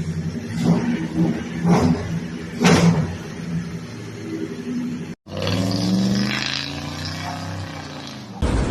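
A car engine idling and being revved in three short blips about a second apart. After an abrupt cut, an engine runs on with a slowly wavering note.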